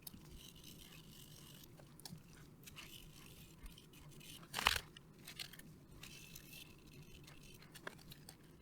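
Faint, irregular scratchy scrubbing as flux residue is cleaned off a circuit board, with one louder scrape about halfway through.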